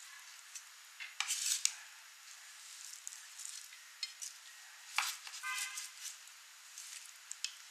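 A kitchen knife cutting onion on a bamboo cutting board: scattered sharp taps of the blade on the board, with a short ringing scrape a little past the middle as the blade slides across the wood.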